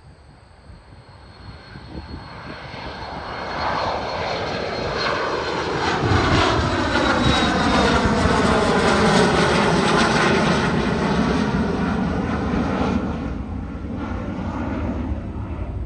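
Twin-engine business jet climbing out after takeoff, its jet engine noise building over several seconds, loudest as it passes overhead about halfway through, then easing off a little. A faint high whine sits over it in the first half, and the sound sweeps with a phasing quality as the plane goes over.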